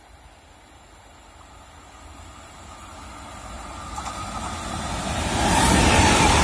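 Freight train of covered wagons hauled by a BB 27000-class electric locomotive approaching and passing at speed: a rumble that grows steadily louder, jumps as the locomotive goes by about five and a half seconds in, then carries on as the wagons roll past.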